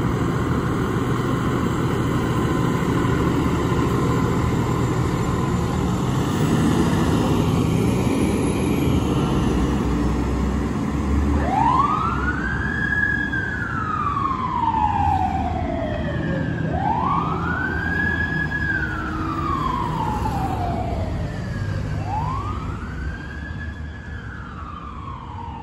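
Engines of a fire engine and an ambulance pulling away with a steady low rumble. About eleven seconds in, an emergency siren starts a slow wail: three up-and-down cycles of about five seconds each, with a quick rise and a longer fall, growing fainter near the end as the vehicles move off.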